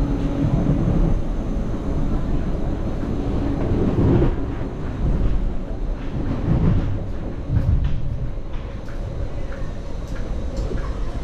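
Inside a Caltrain Stadler KISS electric multiple-unit train in motion: a steady low running rumble of wheels on the rails, with a few brief knocks.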